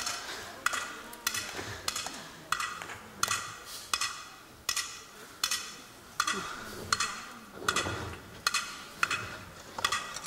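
Matkot rally: wooden beach paddles hitting a small rubber ball back and forth, a sharp knock with a short ring on each hit, about one hit every half second or so, steady throughout.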